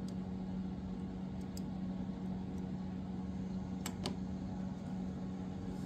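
Steady low background hum with a couple of faint light clicks about four seconds in.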